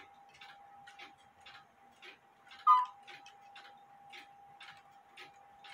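Cuckoo clock movement ticking steadily, about two ticks a second, over a faint steady hum. About two and a half seconds in, the bellows and pipes give one short, loud two-note cuckoo call.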